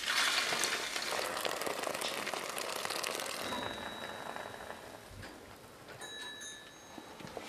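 Fresh sheep's milk poured from a metal pail through a cloth filter into a milk churn: a splashing pour that starts abruptly, is strongest for the first three seconds or so, then thins to a trickle.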